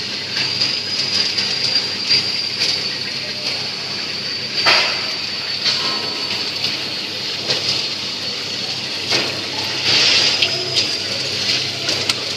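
Food coating machine running: its rotating stainless-steel pan tumbles a batch of snack pieces against a fixed scraper blade. The sound is a steady rattling rush with a high, slightly wavering whine and a few short knocks.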